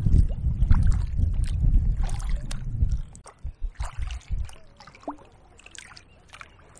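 Kayak paddle strokes splashing and dripping in lake water. A heavy low rumble, likely wind buffeting the microphone, runs for about the first three seconds and then drops away, leaving only the quieter splashes and drips.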